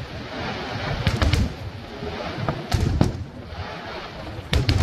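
Aerial firework shells bursting: sharp cracks with deep booms, in three clusters about a second and a half apart, over a continuous noisy background from the display.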